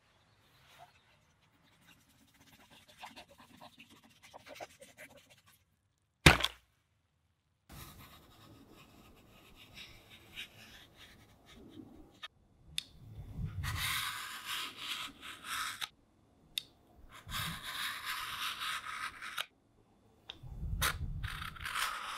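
A knife blade slicing lengthwise through a spool of tightly wound thread: scratchy, rasping cutting strokes. The strokes grow into three long, loud passes in the second half. A single sharp click comes about six seconds in, and before it there is only faint scratching.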